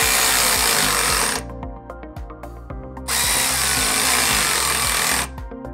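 Electric ratchet running in two bursts of about two seconds each as it drives the nuts down on the cargo rack's leg clamps.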